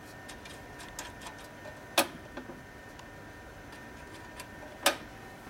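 Sharp metal clinks and ticks of a hand wrench working a bolt on a motorcycle's generator bracket, two loud clinks about two seconds in and near the end, with fainter ticks between.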